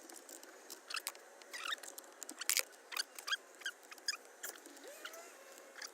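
Irregular small clicks, scratches and brief plastic squeaks as the clips holding a 2005 Toyota Prius's steering-wheel airbag are worked loose by hand.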